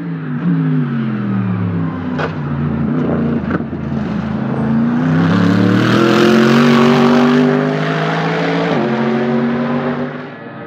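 Mercedes-AMG GT3 race car's naturally aspirated V8 engine: its pitch falls as the car slows, with two sharp pops, then rises steadily under full acceleration, drops suddenly at an upshift about nine seconds in, and fades as the car moves away near the end.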